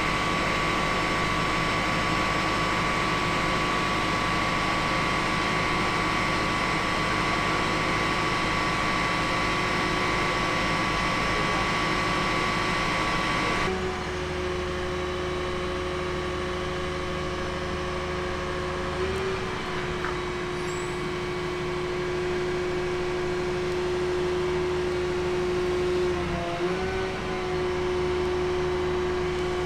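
Hydraulic power pack of a Biedenbach WABI-K.300 knuckleboom crane running under load with a steady, pitched hum. About halfway through the hum changes abruptly to a lower tone, which dips briefly in pitch twice.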